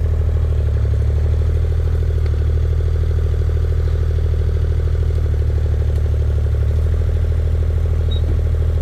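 JCB mini excavator's diesel engine running steadily, with a deep, even, rapid pulse.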